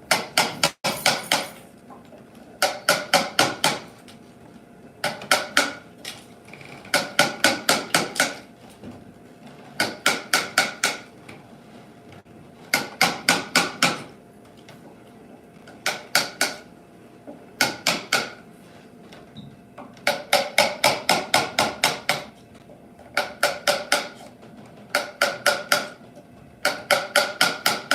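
Hammer driving a Japanese chisel into wood, chopping out the joint from both sides. It goes in rapid runs of four to eight sharp blows, about four a second, with short pauses between runs.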